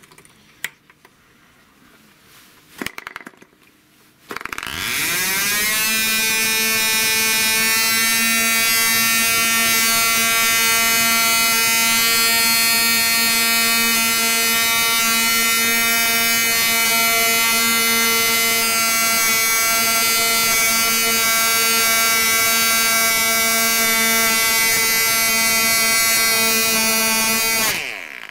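Small two-stroke model aircraft engine turning a 10 x 5 propeller: a few short taps and catches, then it fires about four seconds in, winds up within a second to a steady high-pitched buzzing run, and cuts off abruptly near the end.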